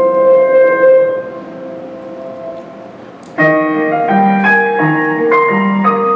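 Background music. A held chord dies away, then a new passage of chords starts suddenly about three and a half seconds in and moves on in a steady rhythm.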